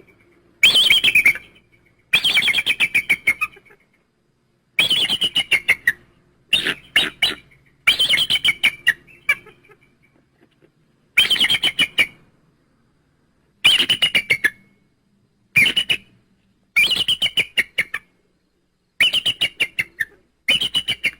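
Gallimimus dinosaur creature sound effects: about eleven separate bird-like squawking calls, each a rapid stuttering run of pulses, with short silences between them.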